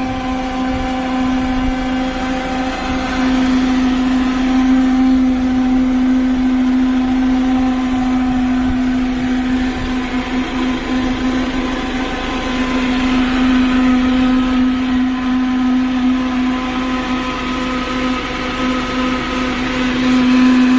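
Kubota tractor engine running at a steady speed with a strong, steady droning tone, the noise the tractor is being checked for.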